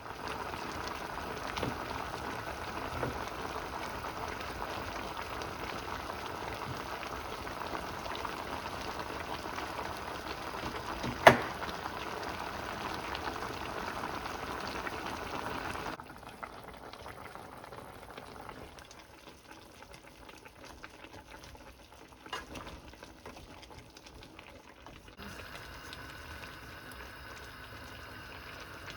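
Spicy chicken stew bubbling at a boil in a pot, a steady bubbling with one sharp knock about eleven seconds in. The bubbling drops quieter about two thirds of the way through.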